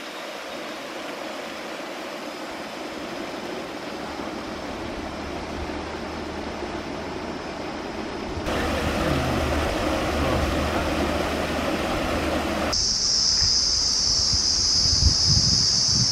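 Water running over a small stone weir, a steady rushing hiss that changes abruptly about eight seconds in. About thirteen seconds in it gives way to a steady high insect buzz, with low wind thumps on the microphone.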